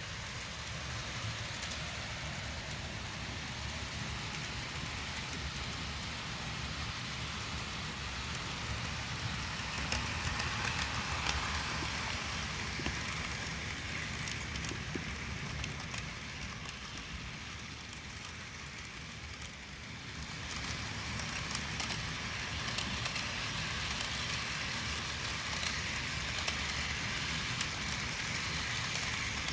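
HO scale Bachmann F9 diesel model locomotives running with a train of loaded flat cars: a steady whir of the small motors and rattle of wheels on the rails, with scattered light clicks. It fades somewhat past the middle, then grows louder again as the train comes back around.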